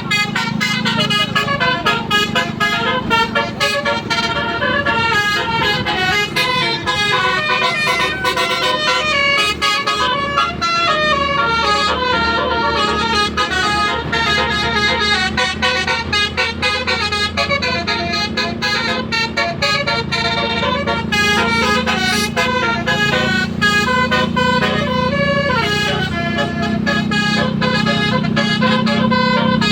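Tour-bus telolet horn, a set of tuned horns, playing quick melodies of short stepping notes without a break over a steady low drone.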